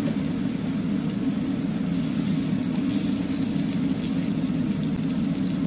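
Steady stovetop noise as chicken pieces fry in a pan over a lit gas burner: a low, even rush with a light sizzling hiss above it.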